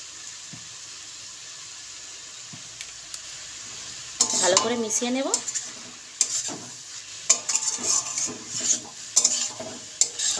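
Vegetables sizzling in a metal wok; from about four seconds in a steel spatula scrapes and clatters against the wok as the vegetables are stirred, starting with one loud scrape that wavers in pitch, then many short scrapes and knocks.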